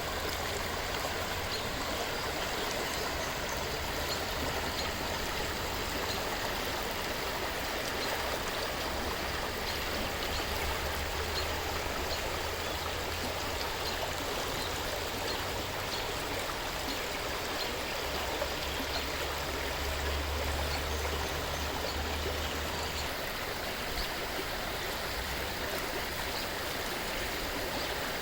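River water flowing in a steady, even rush, with small splashes and droplets ticking through it.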